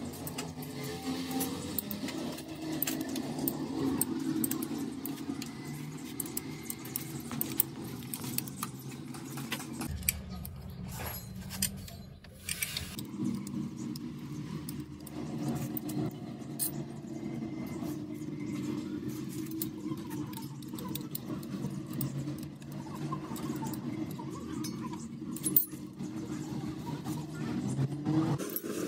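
Metal parts and tools clinking and rattling over a steady machine hum. The hum briefly drops away about ten seconds in.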